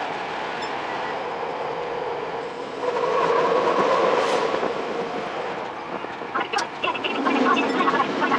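Tokyo Metro 10000 series electric train running, with rail clatter and clicks. A louder humming tone rises about three seconds in and fades by five seconds, and there is a sharp click near the end.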